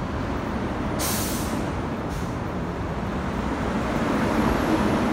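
Air brakes on a work train hissing in a short sharp burst about a second in, then once more briefly, over the steady rumble of the diesel work locomotive moving new R211A subway cars.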